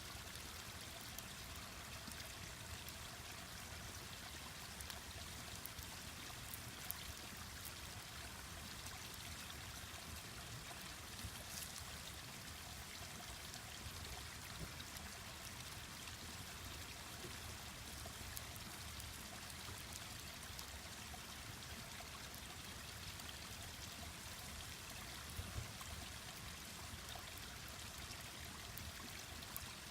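A mountain stream running steadily, with a few sharp pops from a wood fire crackling.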